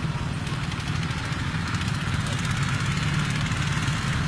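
Small motorcycle engine running steadily at idle, a low, fast-pulsing putter.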